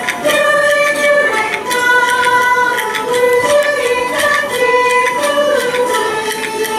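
Minshingaku (Ming–Qing Chinese-style) ensemble playing: a held, gently sliding melody line over plucked moon lute and frequent sharp taps.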